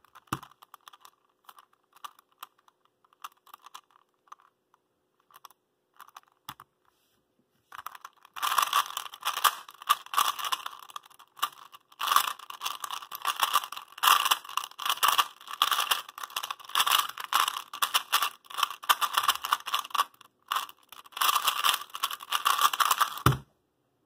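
A Rubik's 2.0 3x3 puzzle cube being solved: scattered single turning clicks for the first several seconds, then long stretches of rapid, loud and crunchy layer turns. Near the end a thump as the solved cube is set down on the desk.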